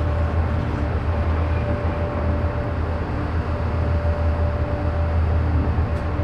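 P&H 2800XP electric mining shovel running with a deep, steady rumble and a constant whine above it.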